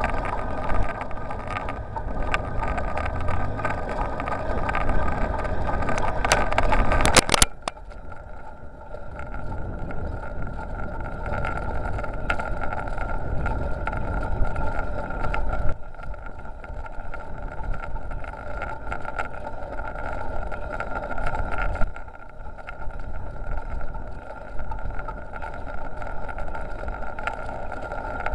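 Wind rushing over the microphone of a bicycle-mounted dashcam during a ride, with rolling noise and a steady whine underneath. A quick run of sharp knocks comes about seven seconds in, after which the noise is quieter.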